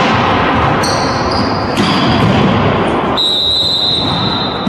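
Indoor volleyball rally echoing in a sports hall: the ball being struck and high squeaks, with a longer squeak about three seconds in, over a steady hall din.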